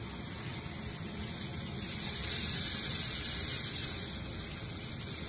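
Water poured from a measuring cup into a hot pan of browned chicken, garlic and onion, sizzling and rushing, louder for a couple of seconds in the middle.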